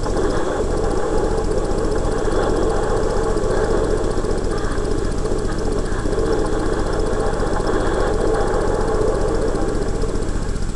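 Film sound effects for a burning-ship scene: a steady, dense roar with no tune in it, heard through a television's speaker.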